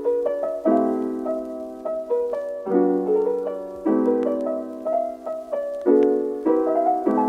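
Background piano music: chords struck about once a second, each fading away.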